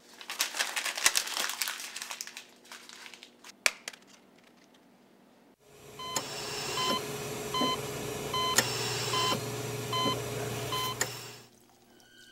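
Dense crackling and rustling for about five seconds with a sharp click partway through, then a loud steady hiss with short high electronic beeps repeating about twice a second, which cuts off near the end.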